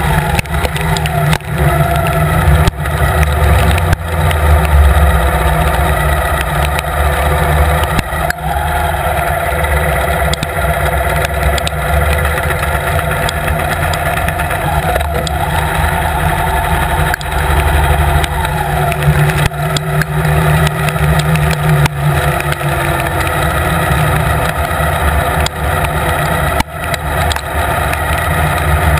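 Victory Cross Country motorcycle's V-twin engine running steadily at road speed, its pitch shifting a little with the throttle. Wind rush and the hiss of tyres and spray on the rain-soaked road run through it, with occasional sharp taps.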